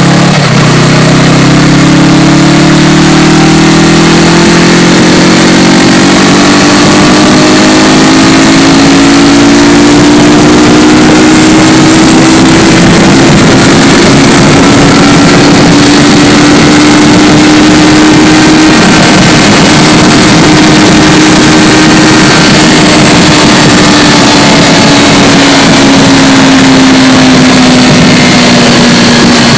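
2019 Yamaha R3's 321 cc parallel-twin engine and exhaust riding in high gear: the engine note climbs steadily over the first several seconds, then holds a steady drone and eases off slightly near the end. Strong wind rush over the microphone runs underneath.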